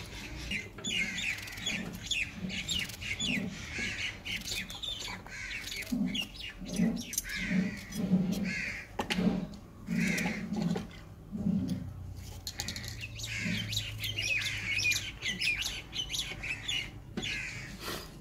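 Birds chirping and calling throughout, with crows among them, over small clicks of a knife cutting through raw turnip held in the hand. In the middle comes a run of low, evenly spaced pulses.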